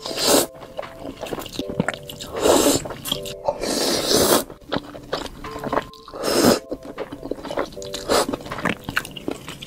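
Noodles slurped into the mouth in four loud slurps, the middle one longer, with chewing between, over soft background music with a repeating melody.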